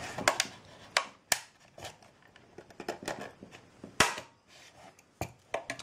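Sharp plastic clicks and cracks as the snap-fitted plastic case of an Iomega external hard drive is pried at with a small tool. The clips strain and snap, loudest about a second in and about four seconds in, with a few smaller clicks near the end.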